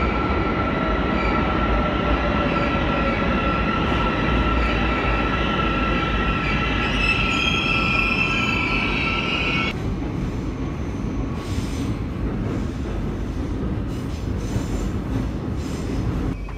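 Subway train running into an underground station, a steady high wheel squeal over the rumble of the cars. The squeal cuts off abruptly about ten seconds in, leaving a lower rumble with a few short knocks.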